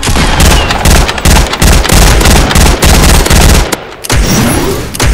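Rapid automatic gunfire sound effect: a sustained burst of several shots a second. It stops a little over three and a half seconds in, and lighter sounds follow.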